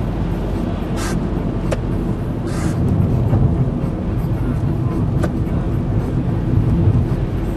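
Car driving, heard from the cabin: a steady low rumble of engine and tyres on the road. A few brief clicks and swishes cut through it at about 1, 2 and 5 seconds in.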